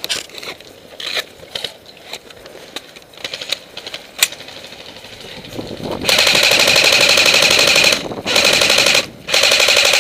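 Airsoft electric gun firing full-auto at close range: a burst of about two seconds, a short burst, then another burst that runs on, each a fast clatter over a steady motor-and-gearbox whine. Before the bursts, scattered single snaps and clicks of play around it.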